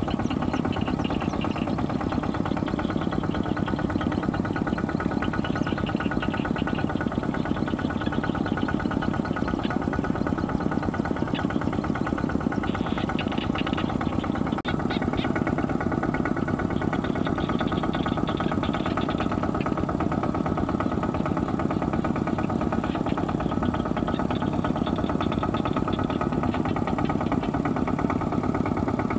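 Two-wheel walking tractor's single-cylinder diesel engine running steadily as the tractor pulls through a flooded rice field, a fast, even knocking beat with some light metallic clatter over it.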